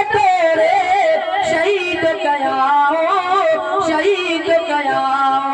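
A man singing a Sindhi naat in a long, ornamented line whose pitch winds up and down, settling on a held note near the end.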